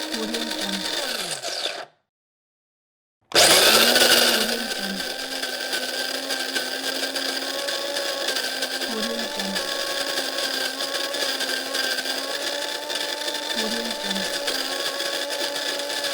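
Electric coffee grinder grinding beans, its motor winding down with a falling whine about two seconds in. After about a second of silence it starts again with a loud burst and settles into steady grinding.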